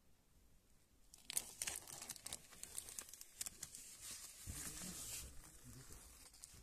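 Cardboard box being handled: dry crinkling and crackling of cardboard starting just over a second in, with dull bumps in the second half.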